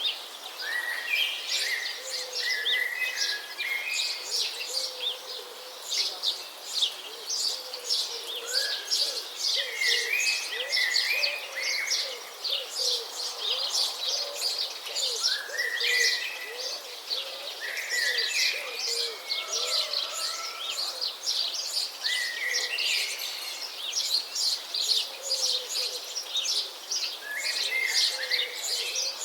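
Several birds chirping and singing together: a dense, busy chatter of short high chirps, with whistled phrases that rise and fall every few seconds.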